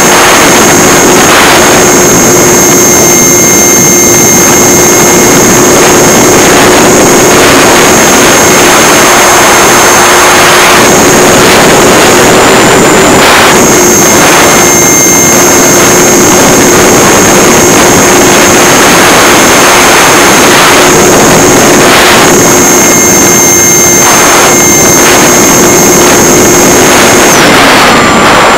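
Electric motor and propeller of a Multiplex EasyStar RC plane running steadily at cruise, heard from a camera mounted on the plane, with loud wind rush over the microphone. Near the end the motor's tone cuts out and winds down in pitch as the throttle is pulled back.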